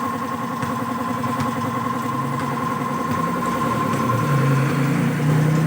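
Kawasaki Fury 125 motorcycle engine idling steadily, its note rising a little about four seconds in.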